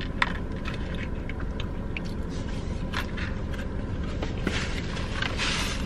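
Close-up eating sounds inside a car: chewing with small scattered clicks and scrapes of food and packaging, over a steady low rumble. A short hissy rustle comes near the end.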